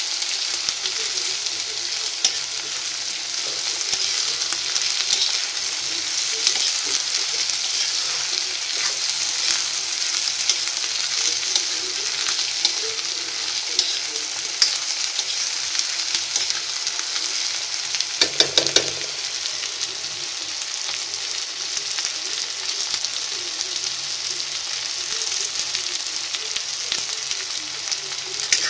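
Garlic cloves, chopped green chillies and ginger sizzling in a little mustard oil in a wok, with a spatula stirring and scraping against the pan in frequent small clicks; they are being lightly fried to drive off their moisture and sharpness. About two-thirds of the way through there is one louder clatter.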